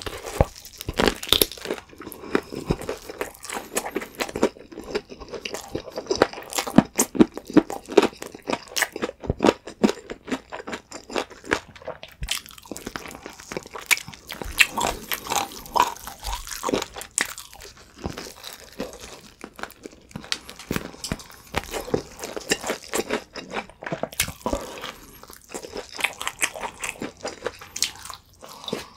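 Crunching and chewing of crispy fried chicken: repeated bites into the crunchy breaded crust and chewing of the meat, with many sharp crackles throughout. The chicken is BHC Chipongdang fried chicken.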